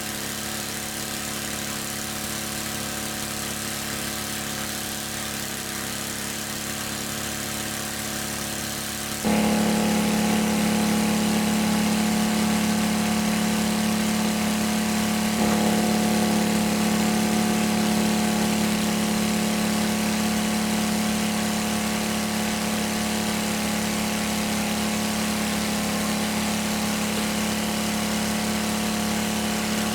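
A small engine running steadily with an even hum, which suddenly gets louder about nine seconds in.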